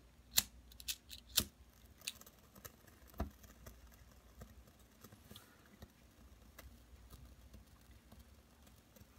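Sharp clicks and light metal clinks as a small brass spirit burner is handled and its wick lit with a lighter: five or so in the first three seconds, then only faint ticks.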